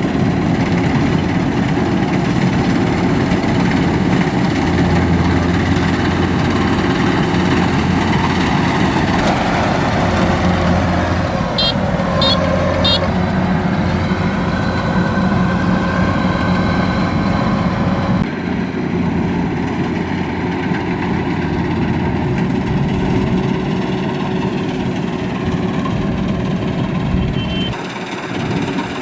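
Kubota DC-93 combine harvester running, its four-cylinder turbocharged diesel engine a steady drone with the machine's working noise; the sound changes suddenly about two-thirds of the way through.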